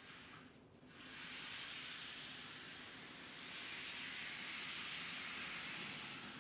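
HO scale model train running around the track, a steady hissing whir from its motor and wheels that starts about a second in.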